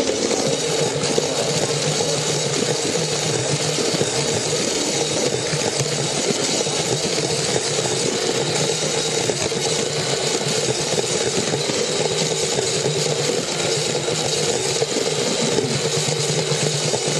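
Small electric train motor whirring steadily with its wheels rattling along plastic track, heard close up from a camera riding on the train.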